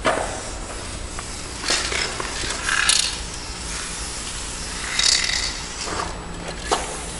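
Aerosol spray-paint cans in use on a wall: three short hisses of spray, with a few sharp clicks in between.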